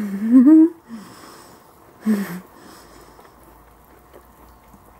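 A woman's wordless rising hum at the start and a short breathy vocal sound about two seconds in, then a small dog faintly chewing a piece of apple with small ticks and lip-smacking.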